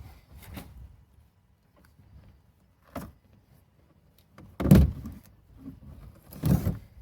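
A part held by glue and screws being pried off a truck topper: a light click about three seconds in, then two louder short clunks near the end.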